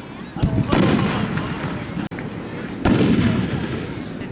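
Aerial firework shells bursting: two loud booms, about half a second and three seconds in, each trailing off in a long rumbling echo.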